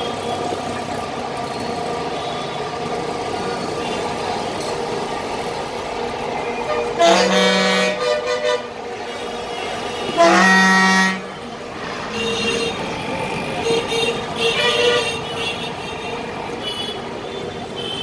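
Busy street traffic with engines running steadily, broken by two loud vehicle horn blasts about a second long each, then several shorter, higher-pitched honks.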